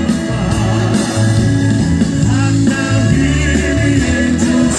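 Music with singing over a steady bass line.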